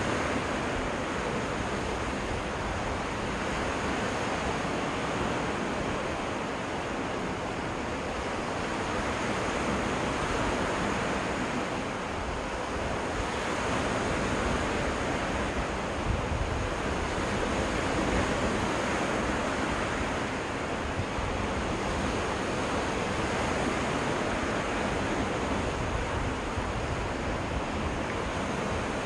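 Lake waves washing onto a freshwater beach in a steady wash that swells and eases every several seconds, with wind rumbling on the microphone underneath.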